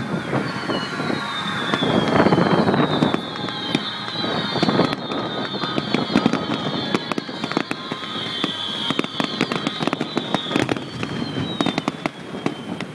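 Fireworks display: dense crackling and sharp bangs from bursting fireworks, with several overlapping high whistles that slowly fall in pitch.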